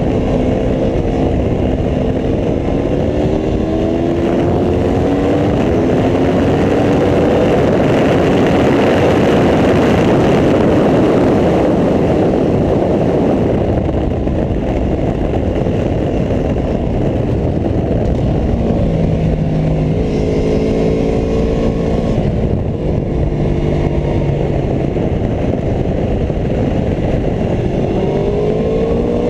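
Aprilia Tuono V4 1100 RR's V4 engine pulling hard on track, its pitch climbing with each gear, while a dense rush of noise swells at top speed. Later its pitch steps through gear changes, and it revs up again near the end.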